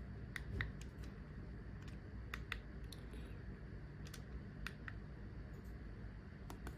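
Scattered faint clicks, several in quick pairs, of fingers pressing on the video doorbell's indoor monitor while stepping through its settings menu.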